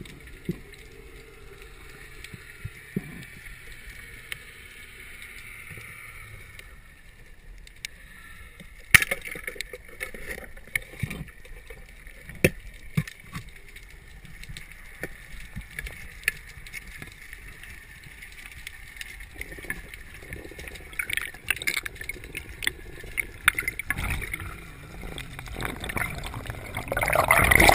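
Muffled underwater sound picked up by a camera in a waterproof housing: a low hiss of moving water with scattered sharp clicks and knocks. Near the end the water noise rushes louder as the diver rises toward the surface.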